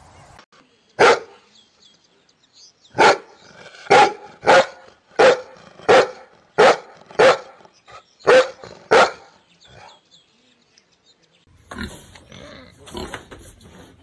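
A shepherd-type dog barking: about ten sharp barks at an uneven pace, ending about two-thirds of the way through.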